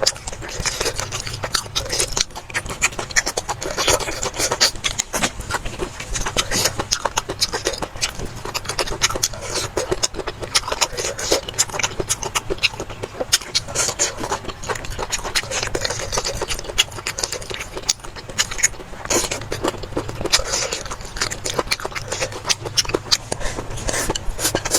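Close-miked eating: a steady run of chewing and mouth noises mixed with many small clicks and scrapes of utensils against a bowl.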